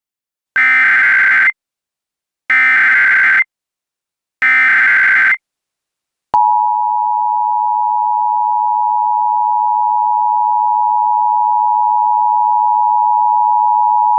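Emergency Alert System tones. First come three short bursts of warbling digital SAME header data, each about a second long, with gaps of about a second between them. About a second later the two-tone EAS attention signal starts: 853 and 960 Hz sounded together as one steady tone lasting about eight seconds, which marks the start of an emergency alert.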